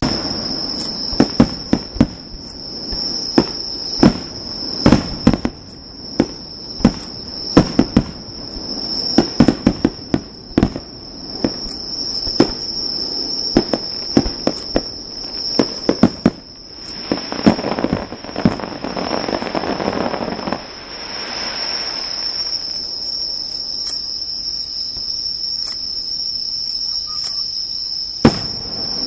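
Fireworks going off: a rapid run of sharp bangs over the first sixteen seconds, a stretch of dense rushing noise a little later, and one more bang near the end. Insects chirr steadily and high-pitched throughout.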